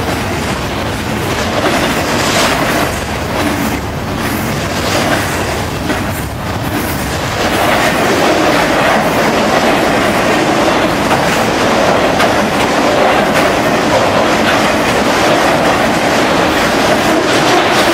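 Freight train cars rolling past close by: a steady rumble with the clickety-clack of steel wheels, first double-stack container cars and then autorack cars. It gets a little louder about seven or eight seconds in.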